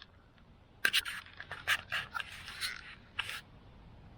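Handling noise from a camera being checked close to its microphone: a cluster of clicks, scrapes and rustles starting about a second in and dying down after about three seconds.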